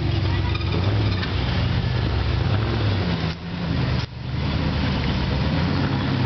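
Engine of an off-road rock crawler running at low revs as it crawls over boulders, its pitch rising and falling a little with the throttle. The sound dips briefly twice a little past halfway.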